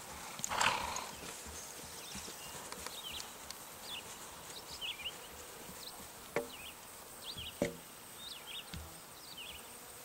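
A horse walking on grass, its hoofbeats faint and regular, with a short loud rush of noise about half a second in and two brief sharp sounds later on. High chirps go on throughout.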